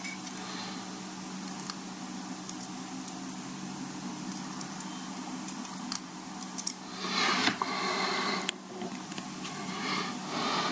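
Small ticks and scrapes of steel tweezers picking at leftover adhesive around the rim of an opened Apple Watch case, over a steady low hum. About seven seconds in, a louder breathy rush of noise lasts about a second.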